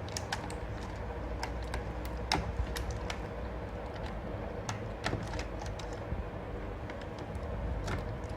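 Scattered small clicks and taps of laptop parts being handled during disassembly, irregular and a few a second, over a steady low hum.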